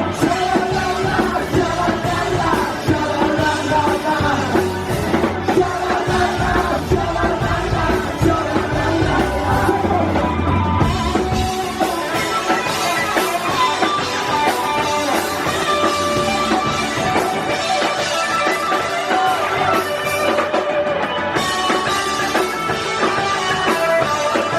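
Live rock band playing a song at full volume; the deep bass drops out about halfway through.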